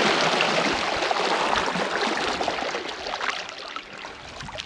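River water rushing and splashing around a canoe as it is paddled and turned, loudest at first and easing off toward the end.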